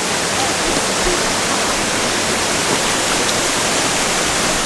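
Steady, loud rush of a waterfall in full flow after heavy rain, the water falling and churning without letup.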